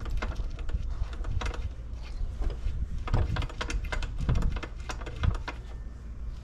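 Hand tools being handled: irregular clicking and clattering of metal tools, with a few dull knocks about three, four and five seconds in.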